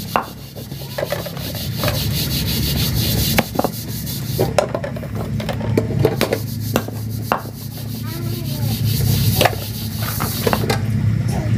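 A large chopping knife striking beef and bone on a wooden block: a dozen or so sharp knocks at an uneven pace, over a steady low hum.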